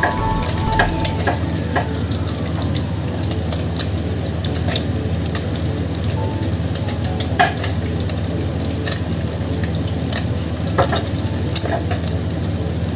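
Hot cooking oil sizzling and crackling in a wok over a gas burner, with scattered sharp pops, two of them louder, about halfway through and near the end. A steady low hum runs underneath.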